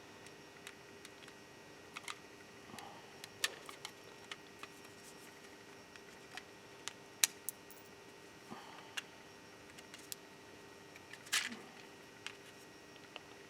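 Scattered small clicks and short scrapes of a screwdriver and thin metal plates working the plastic clips of a car's window switch panel housing. The sharpest click comes about seven seconds in, and a longer scrape comes near the end.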